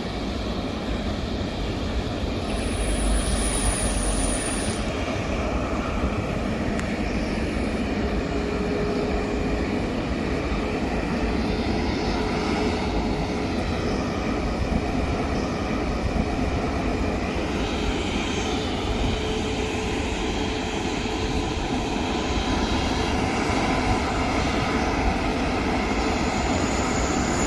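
Steady jet noise of an Emirates Airbus A380's engines during landing: an even rush that holds level throughout, with a faint high whine briefly about three seconds in.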